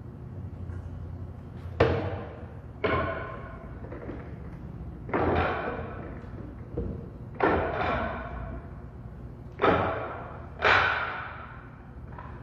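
A series of about seven sharp knocks a second or two apart, each dying away in the room's echo.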